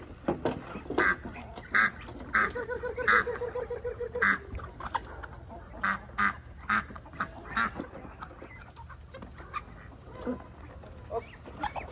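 Domestic ducks calling: many short quacks and honks, crowded together in the first eight seconds and thinning out after that, with one longer stuttering run of quick calls about two and a half seconds in.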